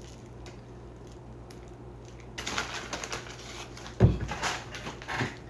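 Rustling and light crinkling as shredded cheese is handled and sprinkled from its package, after a few faint clicks. A single thump about four seconds in, as something is set down.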